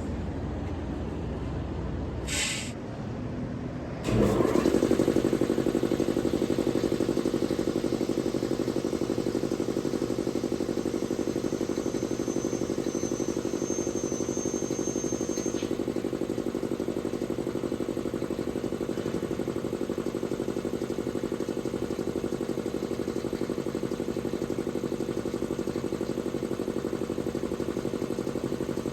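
SAMP 10 HP three-phase electric air compressor starting up suddenly about four seconds in, then running steadily. A short hiss comes just before it starts.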